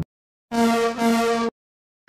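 A locomotive's signal, whistle or horn, sounding two short blasts back to back at one steady pitch, starting about half a second in.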